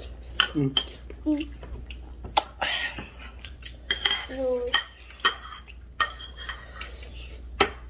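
Spoons clinking and scraping against dishes during a meal, a quick irregular run of sharp ringing clinks, with a few short murmurs of voice in between.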